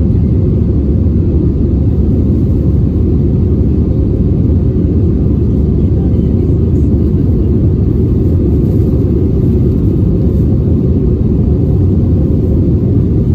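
Steady low roar of an airliner's cabin noise: engines and airflow heard from inside the cabin, unchanging throughout.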